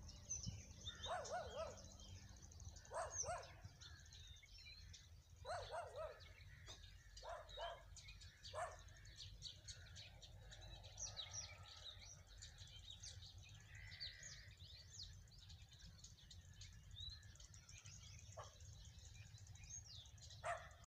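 Faint rural morning ambience: many small birds chirping and twittering throughout. A few lower, wavering calls from another animal come in the first nine seconds and once more near the end, over a steady low rumble.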